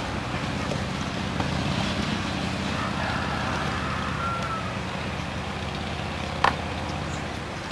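A motor vehicle's engine running steadily, with one sharp click about six and a half seconds in.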